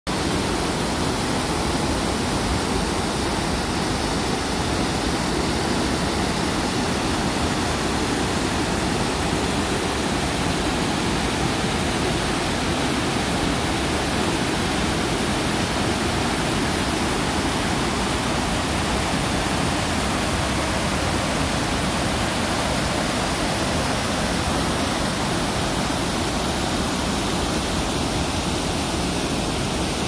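Small waterfall pouring over a mill weir into churning white water: a steady, unbroken rush of falling water.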